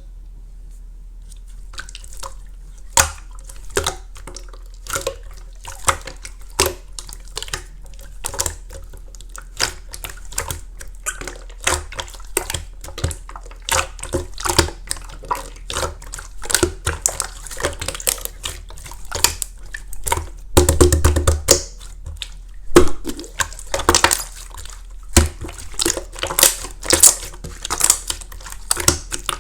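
Clear slime being played with by hand, giving many sharp wet clicks and pops, with a dense run of crackling about twenty seconds in.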